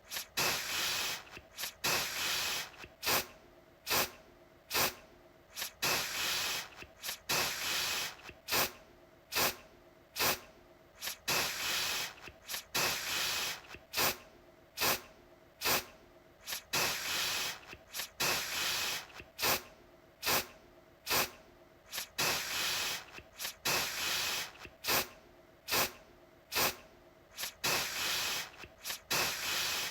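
Aerosol deodorant can spraying in short hissing bursts, about one a second, each starting sharply; some are quick puffs and others last up to about a second.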